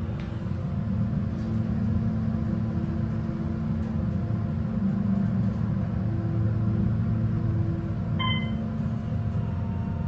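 Otis Series 2 elevator car travelling up one floor: a steady low hum and rumble that swells as the car gets moving. About eight seconds in, a short electronic chime sounds as the car arrives at the floor.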